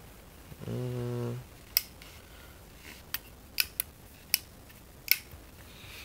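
Sharp metallic clicks, about six of them spaced unevenly over a few seconds, from the sliding tang safety of an antique J. Stevens Springfield double-barrel shotgun being pushed back and forth. Near the start a man gives a brief, held hum.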